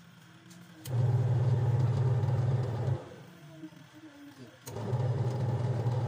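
Washing machine wash motor driving the pulsator in an empty tub, a steady hum in the agitation cycle. It runs for about two seconds, stops for a moment, then starts again near the end.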